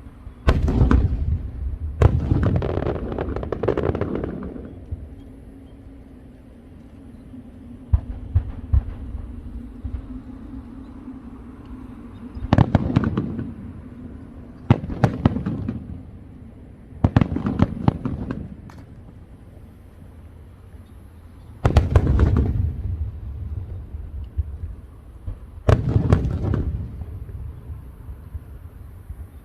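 Fireworks going off in a string of volleys, each a cluster of sharp bangs followed by crackling, with quieter gaps of a few seconds between them.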